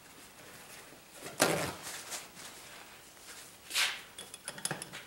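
Palette being cleaned: two brief scraping swipes, one about a second and a half in and one near four seconds, followed by a quick run of light clicks and taps.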